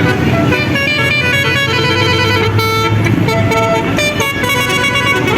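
Telolet basuri musical air horn on a bus, playing a melody as a quick run of separate notes that step up and down, with an engine running underneath.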